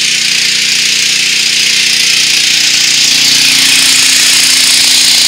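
Portable generator's engine running steadily while carrying the garage's load, without bogging down; it grows a little louder about three seconds in.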